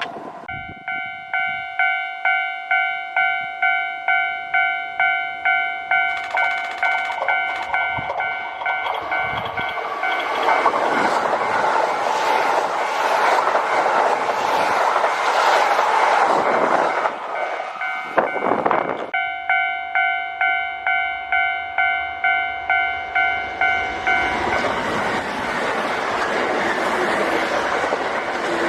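Japanese level-crossing alarm ringing its repeated electronic 'kan-kan' tone about twice a second. From about ten seconds in, a Kintetsu electric train passes over the crossing with a rising rush of wheel and rail noise that drowns the bell. The bell is heard again briefly, then more train noise builds near the end.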